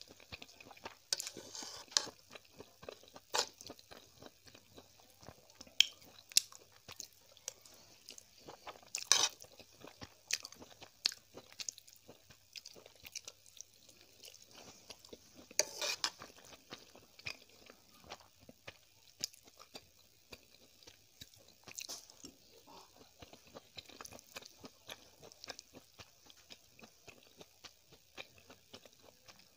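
Close-miked chewing of Maggi instant noodles: a steady run of short, irregular mouth clicks, with a few louder ones about 9 and 16 seconds in.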